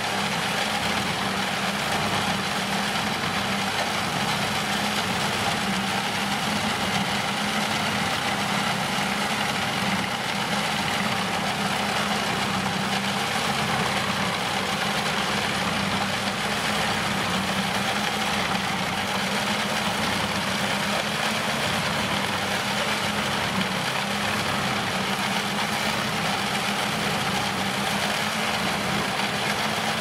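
Eschlböck Biber 84 wood chipper and its drive engine running at a steady speed, with an even, unchanging hum.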